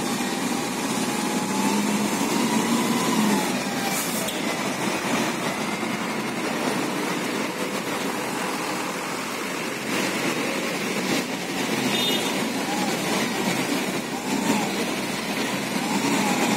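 Engines of a wheel loader and a Hino dump truck running steadily while the loader loads the truck. A faint whine rises and falls in pitch now and then.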